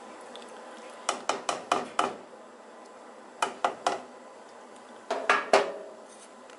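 Slotted spoon knocking against the side of a cooking pot of sauced spaghetti, in three quick runs of sharp taps, the last one the loudest.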